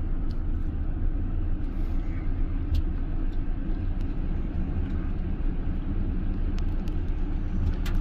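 A car driving along a road, heard from inside the cabin: a steady low rumble of engine and road noise.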